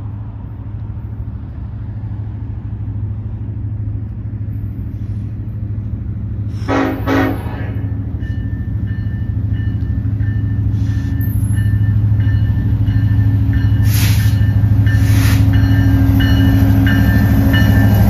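An approaching BNSF EMD SD70ACe diesel locomotive with a coal train, its engine rumble steadily growing louder as it nears. The horn sounds two short blasts about seven seconds in and two louder ones a few seconds before the locomotive arrives.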